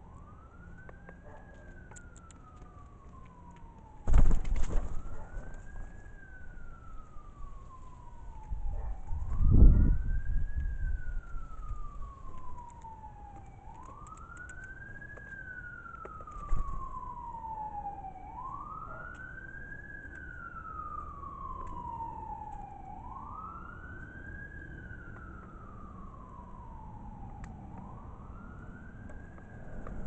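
Emergency vehicle siren wailing over and over: each cycle sweeps up quickly, then falls slowly, about every four and a half seconds. Loud low thumps break in close to the microphone about four seconds in and again near ten seconds, with a smaller knock a few seconds later.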